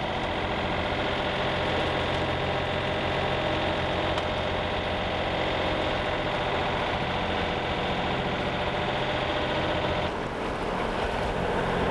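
Sailboat's inboard diesel engine running steadily while motoring, a constant hum; the sound shifts slightly and dips in level about ten seconds in.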